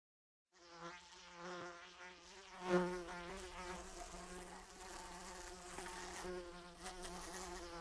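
A housefly buzzing, its drone wavering in pitch and swelling and fading as it flies about. It starts about half a second in and is loudest near the three-second mark.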